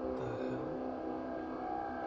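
Steady, droning horn-like tone with many overtones holding one pitch: the so-called strange trumpet sound from the sky, of unknown origin. A lower tone dips and rises twice beneath it near the start.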